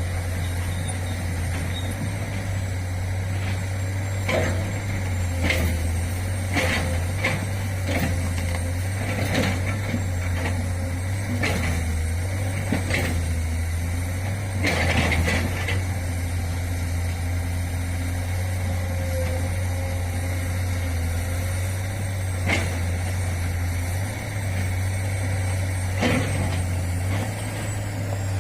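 Komatsu PC200 excavator's diesel engine running steadily while loading a dump truck, with repeated sharp knocks and clanks through the first half and a few more later. A short hissing burst comes about fifteen seconds in.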